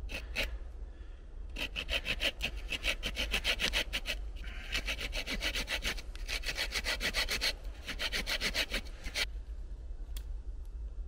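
Bahco Laplander folding saw cutting through wood in runs of quick back-and-forth strokes with brief pauses between them, stopping about nine seconds in.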